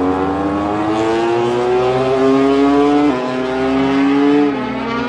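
KTM RC16 MotoGP bike's V4 engine accelerating hard, its pitch climbing through the gear, with a quick upshift about three seconds in and another about a second and a half later.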